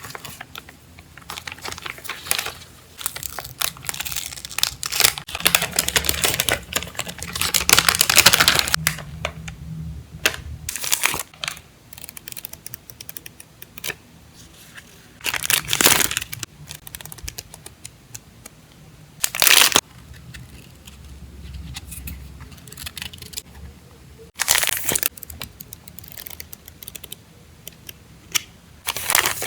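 Packaging being handled and opened: crinkling and tearing of wrapping, with scattered small clicks and taps. The louder crinkling comes in several separate bursts, the longest about eight seconds in.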